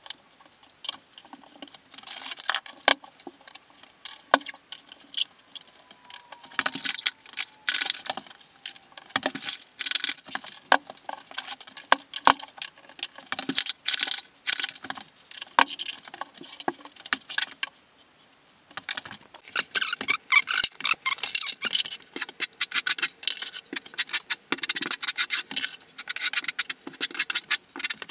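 Quick, irregular clicks, clinks and taps of ceramic subway tiles and plastic tile spacers being set on the shower wall. They come in a dense run that pauses briefly about two-thirds of the way through.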